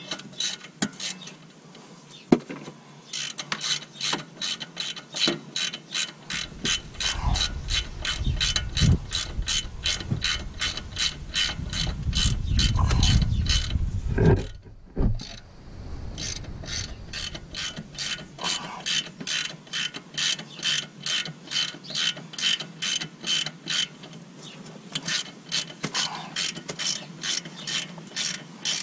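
Hand ratchet with a 15 mm socket turning a bolt on a Ford F350's front sway bar bushing bracket: rapid, even clicking of the pawl, stopping briefly about fifteen seconds in. A low rumble runs underneath from about six to fifteen seconds in.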